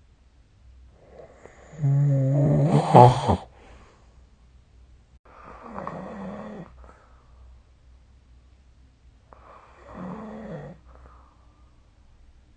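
A sleeping person snoring: three snores about four seconds apart. The first is the loudest, with a low buzzing rattle, and the next two are softer.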